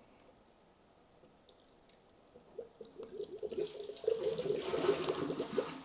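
PC water-cooling coolant being poured into the loop's reservoir: quiet at first, the liquid sound starts about two and a half seconds in and grows louder toward the end.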